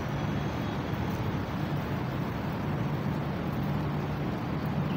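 Steady outdoor background noise: a low, even rumble with hiss over it, with no distinct events.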